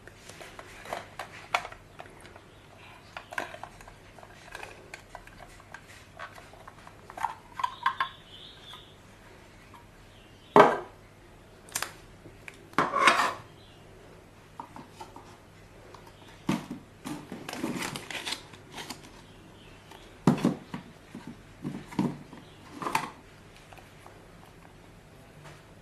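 Irregular clicks, knocks and clattering of small hard objects being handled, with the loudest knocks about ten and thirteen seconds in.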